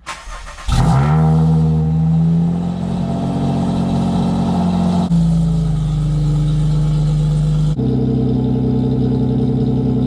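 Honda J35 V6 engine accelerating: the revs climb sharply about a second in, then it runs on under steady load, its note changing abruptly twice.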